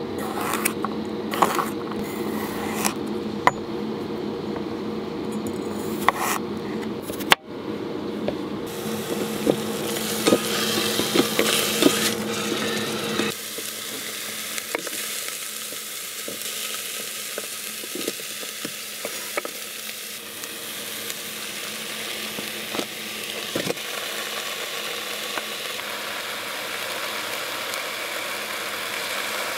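Kitchen knife chopping vegetables on a wooden cutting board, a string of sharp taps, then food sizzling steadily in an electric pressure cooker's stainless inner pot from about halfway through.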